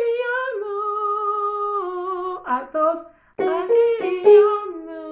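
A woman singing a soprano harmony line alone, without accompaniment. There are two phrases of long held notes that step downward, with a short break between them about three seconds in.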